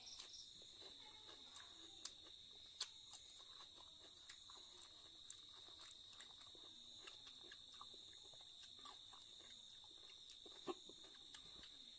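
Faint chewing and mouth clicks of a person eating rice and meat by hand, a few small smacks scattered through, over a steady high chirring of crickets.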